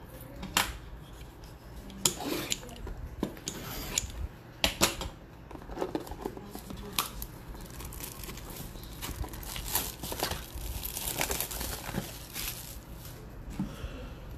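Plastic shrink-wrap on boxes of trading cards being torn off and crinkled by hand, with taps and scrapes of the cardboard boxes being handled: irregular sharp clicks and crackles, densest a little past the middle.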